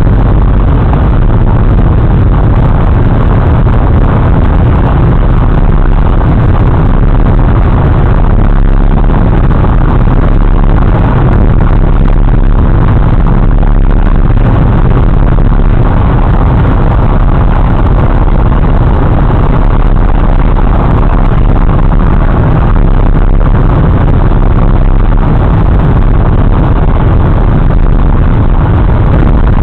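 Loud, steady rush of wind buffeting through an open car window at highway speed, mixed with tyre and road noise.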